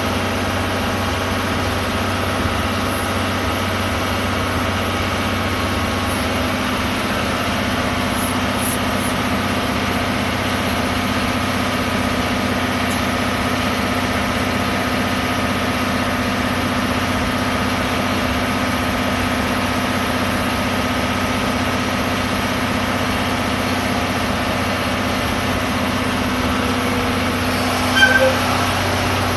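DE10 diesel-hydraulic locomotive idling, its V12 diesel engine running with a steady, even hum. About a second before the end, a brief louder sound with a few short high tones rises over the idle.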